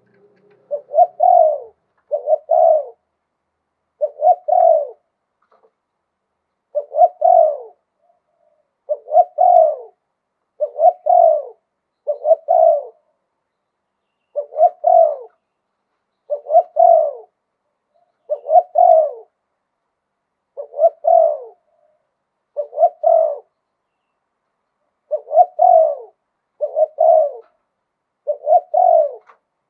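Spotted dove cooing in a steady series of short phrases, each a quick run of notes, repeating about every two seconds. This is the 'liu tan' calling style prized by Thai dove keepers.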